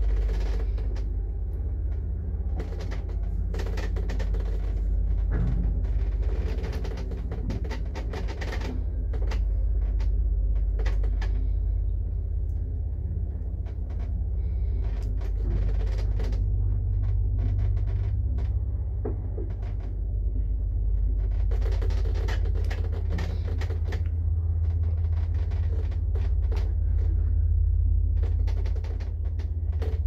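A 1969 passenger lift running, with a steady low rumble and a motor hum. Irregular clicks and rattles come through throughout.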